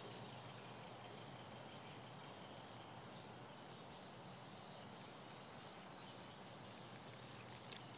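Insects, chiefly crickets, keeping up a faint, steady high-pitched chorus.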